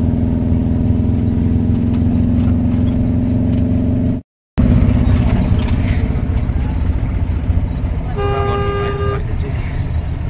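Engine and road noise of a small Tata Magic passenger van heard from inside its cabin, steady and loud. About eight seconds in, a vehicle horn sounds once for about a second.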